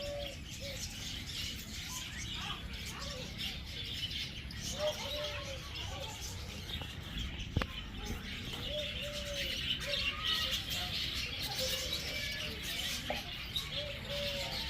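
Birds calling: runs of short, repeated cooing notes over a steady background of higher chirping. A single sharp click sounds about halfway through.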